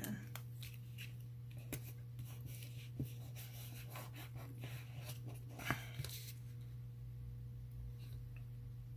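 Light paper rustling and soft ticks and taps from a hand pressing and smoothing a sticker onto a paper planner page, with the loudest rustle near six seconds, then quieter. A steady low hum runs underneath.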